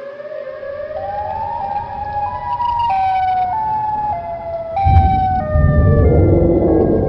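Siren sound effect: a wailing tone that rises over about two seconds, then falls in steps, joined by a deep rumble about five seconds in.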